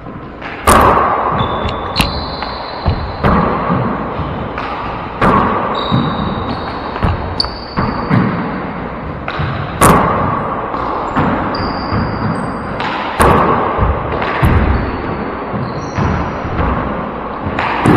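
Four-wall handball rally: the small rubber ball smacking off gloved hands, the front wall and the floor about once a second, each hit ringing out in the court's echo, with sneakers squeaking on the hardwood floor between hits.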